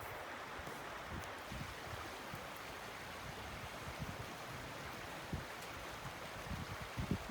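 Steady rush of flowing creek water, with irregular low thumps of wind buffeting the microphone.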